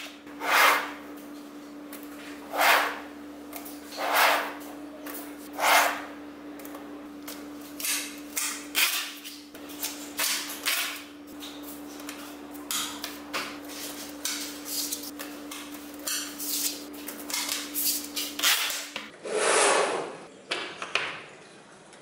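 Small magnetic balls clicking and snapping together as rows of them are set down and pressed into place on a table, with four louder snaps in the first six seconds and then a quicker patter of small clicks. A faint steady hum lies underneath, and a duller knock comes near the end.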